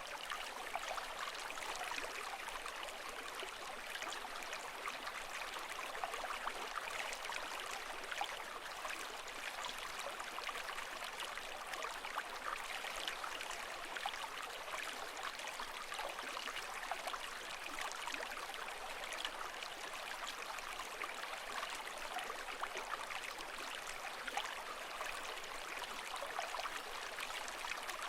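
Water ambience sold as sea sound: an even, steady rush of water with a fine trickling crackle, without the rise and fall of breaking waves.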